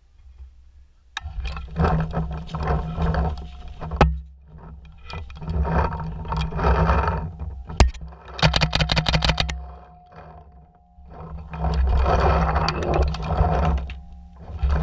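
Paintball marker firing a rapid string of about a dozen shots in a second about halfway through, with a few single sharp pops elsewhere. Between them, gusts of rumbling noise on the microphone.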